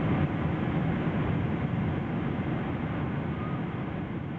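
Steady cabin roar of a Boeing 777-300ER in cruise flight, heard from inside the passenger cabin and slowly fading.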